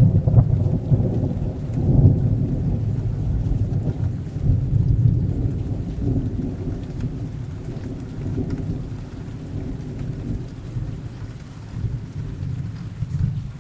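Rain sound effect with rolling thunder: a deep rumble swells near the start and again about two and five seconds in, then slowly eases, over a steady rain hiss.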